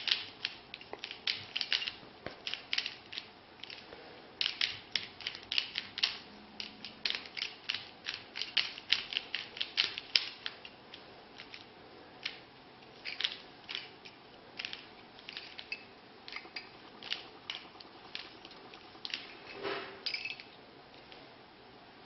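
Stickerless colored-plastic Rubik's cube being turned by hand in a solve: quick runs of sharp clicks as the layers snap round, with short pauses between runs.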